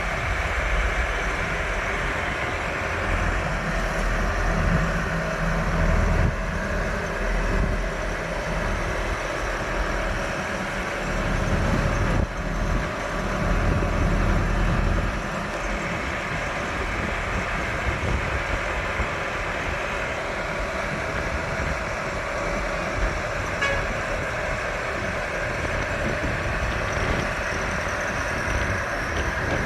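Massey Ferguson 390 tractor's 4.1-litre four-cylinder diesel engine running. It is heavier and louder for the first fifteen seconds or so, then settles to a steadier, lighter run.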